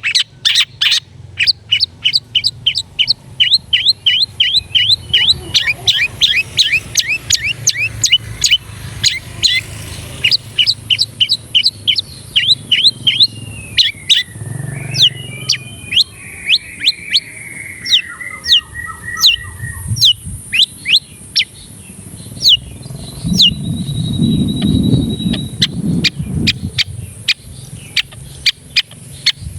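Long-tailed shrike (cendet) singing: a long run of sharp, repeated downward-sweeping 'toet' notes, several a second, with a falling chattering phrase about halfway through and a thin held whistle later on. A low rumble sits in the background about three-quarters of the way through.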